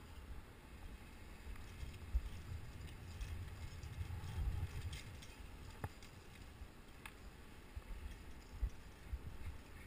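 Wind rumbling on the microphone during a rappel down a rock face, with a few sharp clicks and light scuffs from boots and climbing gear against the rock.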